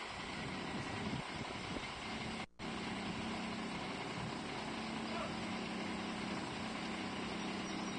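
A motor engine running steadily at idle, with a low, even hum over wind on the microphone. The sound cuts out for an instant about two and a half seconds in.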